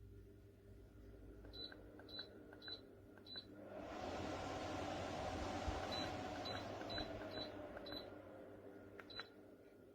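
Tower fan's control panel beeping at each button press, four short beeps in quick succession. About a second later the fan's airflow swells into a rushing hiss. Five more beeps follow as the airflow slowly eases off, then one last beep near the end.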